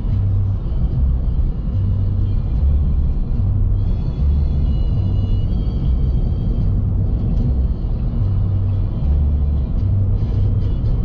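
Low, steady rumble of a car driving, heard from inside the cabin, with music playing over it; its bass notes change about once a second.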